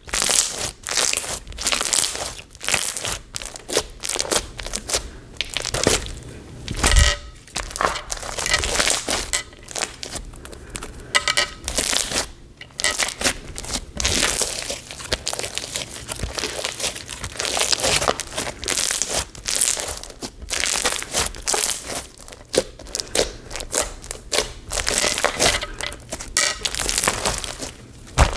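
Crunchy white-glue slime packed with silica beads and mini blockbeads being squeezed and kneaded by hand: a dense, irregular stream of crunches and crackles.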